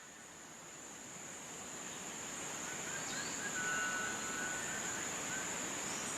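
Steady high-pitched insect drone in the background, slowly growing louder, with a few faint short bird chirps in the middle.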